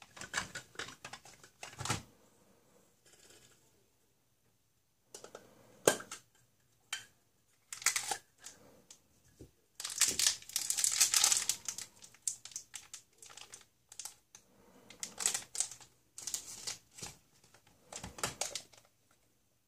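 Hands handling plastic surprise eggs and a toy in a clear plastic bag: scattered clicks and knocks of hard plastic, with crinkling of the plastic wrapper. The crinkling is longest about halfway through.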